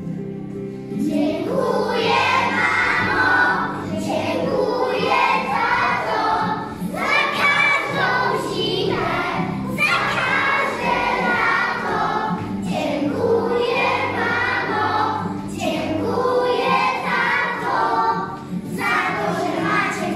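A class of young children singing together in unison over instrumental accompaniment, the voices coming in about a second in and going on in phrases with short breaths between them.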